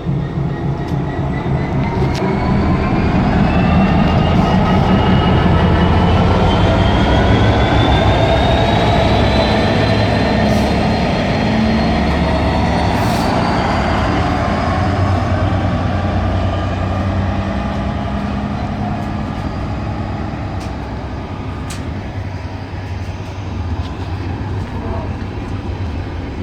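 Slow freight train hauled by a Class 66 diesel locomotive going over the crossing: a steady low rumble of engine and wheels on rail. Over it, a whine rises slowly in pitch through the first fifteen seconds or so. The loudest part comes a few seconds in.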